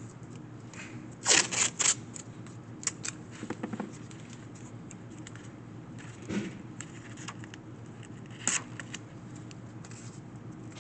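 Irregular sharp clicks and knocks of handling, three loud ones in quick succession about a second in and fainter ones scattered after, over a steady low hum.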